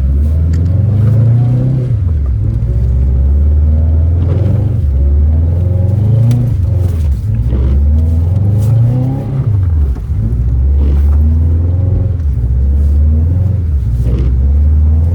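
Subaru WRX's turbocharged flat-four engine revving up and down over and over, the pitch climbing and then dropping sharply about every two to three seconds, as under repeated throttle stabs.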